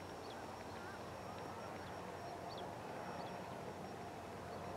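Faint steady drone of an Air Tractor 402B crop duster's Pratt & Whitney PT6A turboprop as it climbs away, with scattered short bird chirps.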